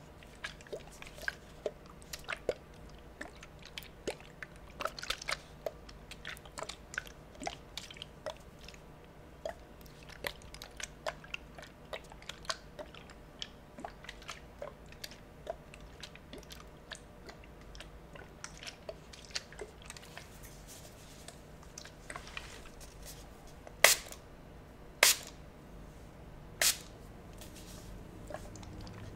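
Close-miked spray bottle of liquid being handled: a steady run of small crackles, taps and wet squishes. Near the end come three louder sharp sounds.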